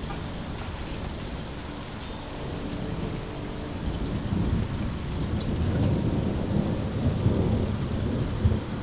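Thunderstorm: steady rain with a low, irregular rumbling that grows louder from about four seconds in.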